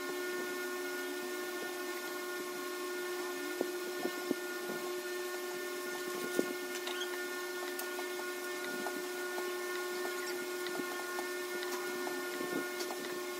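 Steady machine hum with one constant tone, under scattered light clicks and rustles of a block of cheese being unwrapped from its foil and a knife cutting it on a wooden board near the end.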